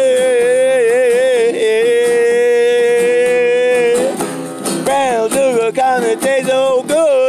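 A person singing without words, holding one long wavering note for about four seconds, then a run of shorter sung notes, with guitar accompaniment.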